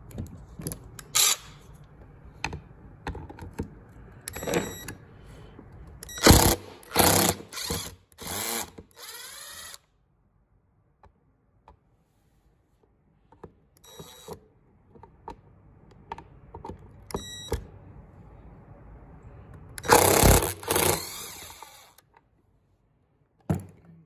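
Clicks, scrapes and knocks from the plastic housing of a Ridgid wet/dry vacuum's motor being handled and worked open, with a run of loud knocks about six to nine seconds in and another loud burst about twenty seconds in.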